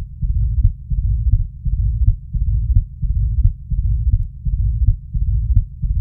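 Heart sounds of mitral stenosis recorded through a Thinklabs digital stethoscope: a loud first heart sound (lub), then the second heart sound followed by a low-pitched rumbling mid-diastolic murmur (dub durr), repeating with every beat. The loud S1 comes from thickened mitral valve leaflets snapping shut, and the rumble from slow blood flow through the narrowed mitral valve.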